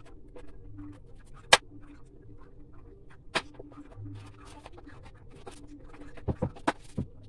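Kitchen knife slicing a carrot on a wooden cutting board: scattered knocks of the blade striking the board, the loudest about one and a half seconds in, then a quick run of chops near the end, over a faint steady hum.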